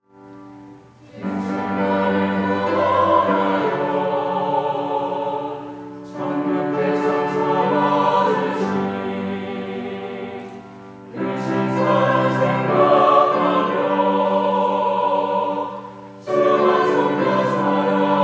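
A women's choir sings a Korean hymn with grand piano accompaniment, in four phrases of about five seconds each. The piano enters softly just before the voices.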